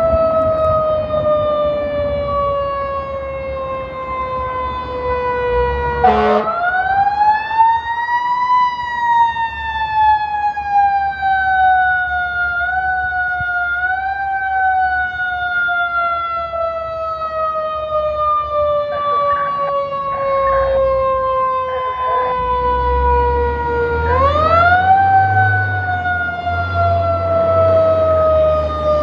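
Approaching fire truck's siren wailing: it falls slowly in pitch, winds up again about six seconds in, coasts down for a long stretch, and winds up once more near the end. The truck's engine rumble grows underneath in the last few seconds as it comes close.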